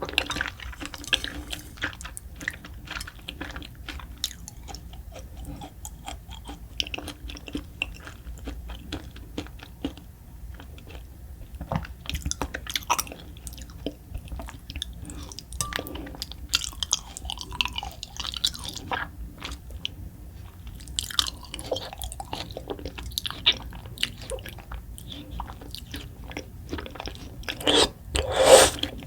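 Close-miked chewing of raw beef spine bone marrow: a steady run of wet smacks and small mouth clicks, with a louder burst of chewing near the end.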